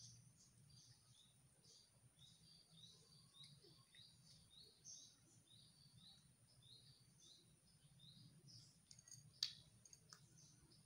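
Faint, quick bird chirps repeating a few times a second, with one sharp click about nine and a half seconds in.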